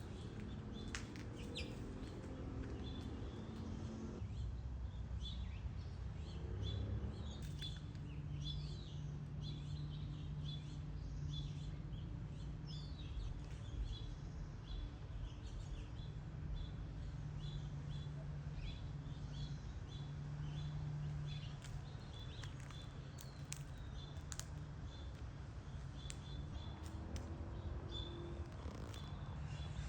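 A bird outdoors chirping repeatedly: short high chirps over and over, with a few quick falling notes, over a steady low hum.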